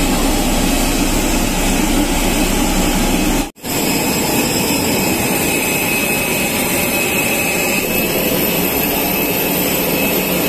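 Steady loud jet airliner noise, a dense rushing roar with a thin high whine, briefly cut out about three and a half seconds in.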